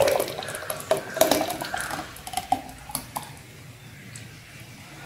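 Thick mango drink poured from a ceramic bowl into a glass jug, splashing, with several sharp clinks of crockery and glass over the first three seconds; after that the pour runs on more faintly.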